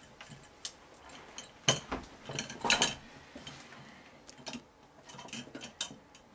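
Sharp metal and glass clinks and clicks as the restored 1960s Soviet oil lamp's metal frame and glass globe are handled and fitted together. The loudest clink comes a little under two seconds in, followed by a quick cluster near three seconds and lighter clicks after.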